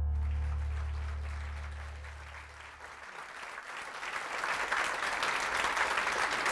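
Music from a tribute video fades out over the first three seconds, with a low sustained bass tone dying away, while an audience claps. The applause grows louder after the music is gone.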